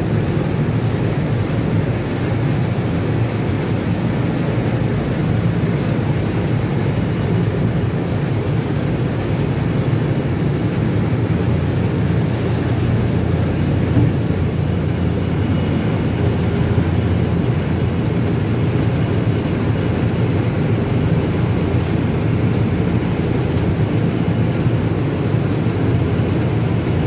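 Steady low rumble of a ship underway, heard on board, with no breaks or sudden sounds.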